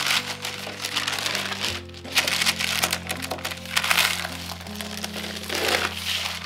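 Background music with long held notes, changing chord about two seconds in, over a dense run of close-up crackling and crunching sounds.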